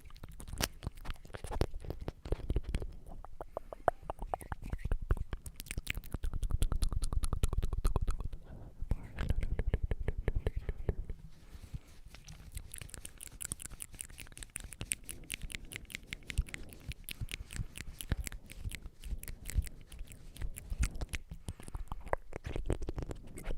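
Close-miked ASMR mouth sounds: rapid wet clicks and smacks in dense runs, with a quieter lull near the middle.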